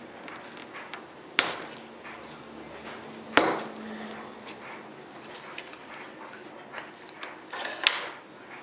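A trading card pack being opened and its stack of cards handled on a wooden table: light rustling and small ticks, with sharp clicks about one and a half and three and a half seconds in, and another near the end.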